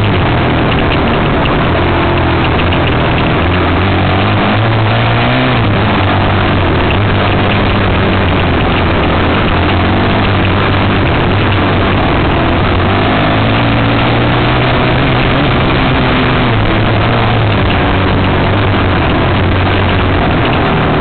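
Enduro dirt bike engine running loud under way on a trail, its revs rising and falling as the throttle is worked.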